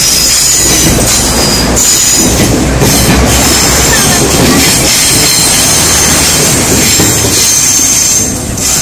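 Taiwan Railways DR1000-series diesel multiple unit passing right alongside at low speed: diesel engines running, wheels clicking over rail joints, and a steady high-pitched wheel squeal. The noise drops as the last car goes by near the end.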